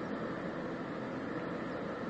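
Steady, unchanging drone of a distant river ship's engine carried across open water.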